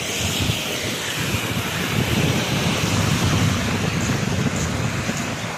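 Wind buffeting the phone's microphone in uneven gusts, with the hiss of a car's tyres through standing floodwater at the start, fading away.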